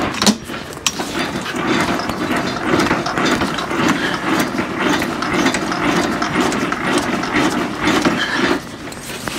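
Geared legs being wound by a crank handle, their gear mechanism running steadily for several seconds; they are being lowered to check that both go down evenly. It starts about a second in and stops shortly before the end.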